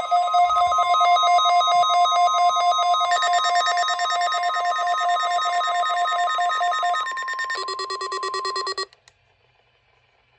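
Emergency alert receiver's electronic alarm warbling rapidly between two pitches, announcing a Required Weekly Test. The tone pattern shifts about three seconds in and again near seven seconds, then cuts off suddenly about nine seconds in.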